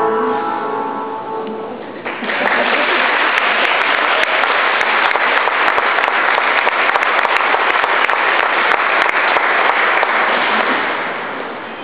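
Music ending with held notes that fade out, then an audience applauding from about two seconds in, the clapping tapering off near the end.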